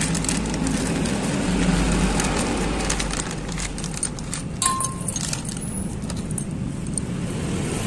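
Light clinks and taps of small metal engine parts being handled, over a steady low background hum.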